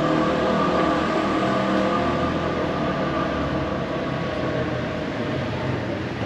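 A motor vehicle's engine running steadily in street traffic, slowly growing quieter.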